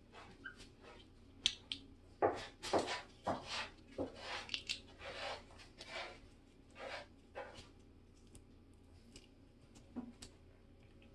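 Two goslings dabbling and pecking at romaine lettuce in shallow bathwater: a quick, irregular run of small splashes and bill snaps, thinning out after about eight seconds.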